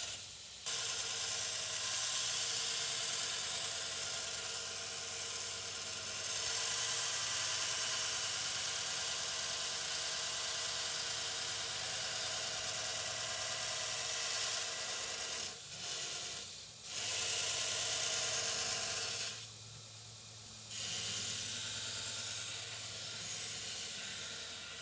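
Belt grinder with a worn-out belt grinding the profile of a steel knife blank: a steady hiss of abrasive on steel over the machine's hum, dropping away briefly three times.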